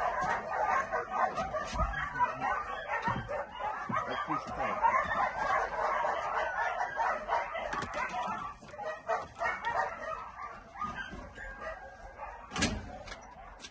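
Several dogs barking at once, a dense overlapping din that thins out about eight seconds in. There is a sharp click near the end.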